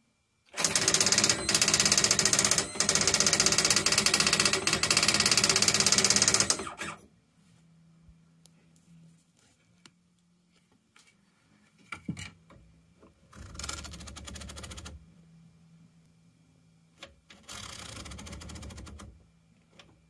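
Commodore DPS-1101 daisy wheel printer printing text: a loud, very fast stream of typewriter-like hammer strikes for about six seconds, with two brief pauses. Later come two shorter, quieter runs of printer mechanism noise.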